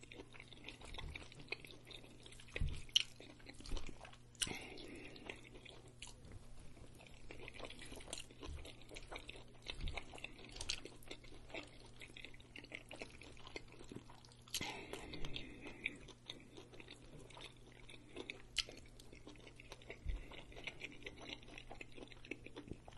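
A man chewing a mouthful of burrito bowl (brisket, chicken, rice and lettuce) close to the microphone, with scattered wet mouth clicks and smacks.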